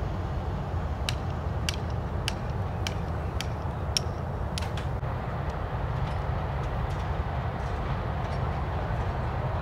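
GE U20-type diesel-electric locomotive running, a steady low rumble. A regular series of sharp clicks, about one every half second, comes in about a second in and fades after the middle.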